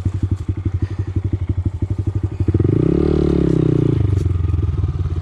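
Honda Grom's single-cylinder engine putting along at low revs, revved up once about halfway through and dropping back to a low putter.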